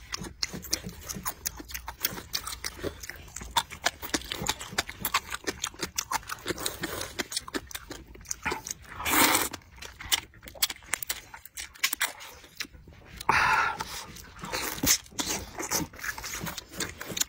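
Close-miked eating: steady wet chewing and lip-smacking clicks on braised pig's trotter and noodles, with a long loud slurp of noodles about nine seconds in and a few shorter, louder bursts near the end.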